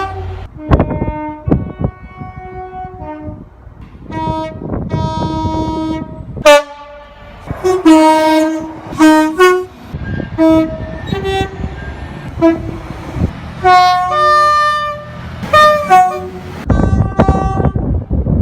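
Train horns sounding in a string of short and long blasts, each a steady multi-note tone, the pitch changing from one horn to the next. The rumble of rail traffic runs underneath and grows louder near the end.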